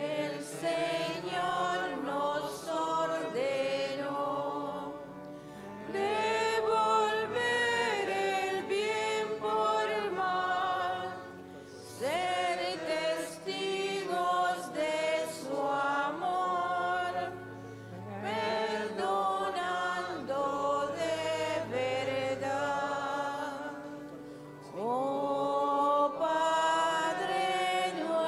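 Church choir singing a communion hymn in phrases with short breaths between them, over organ accompaniment.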